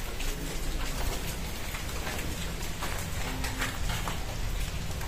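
Rain pattering steadily: a dense, even patter of many small drops.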